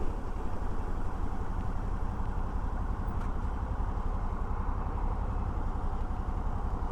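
Steady rush of riding noise from a Suzuki V-Strom 650 V-twin motorcycle under way: wind rumble on the mic mixed with the engine's drone, without a break or change.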